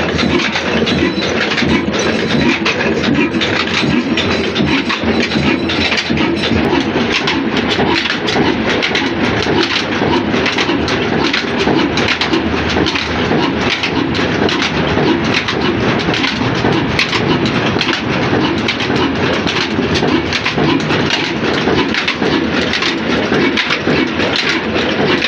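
Large old stationary diesel engine running steadily, its heavy flywheel turning and driving a flat belt to a line shaft; a loud, continuous clattering run.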